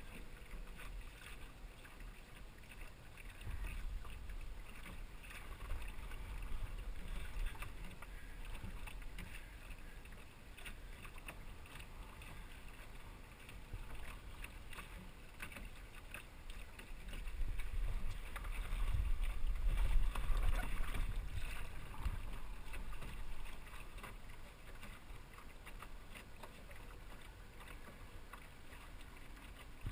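Small sailing dinghy under way: water washing and lapping against the hull, with scattered light ticks and a low rumble that swells a few times and is loudest about two-thirds of the way through.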